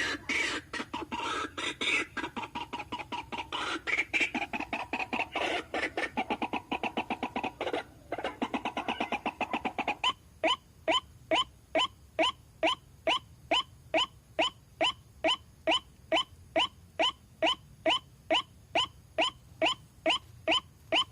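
White-breasted waterhen (ruak-ruak) calling: at first a dense, overlapping chatter of rapid repeated notes, then from about ten seconds in a steady, evenly spaced series of short "wak" notes, about two a second.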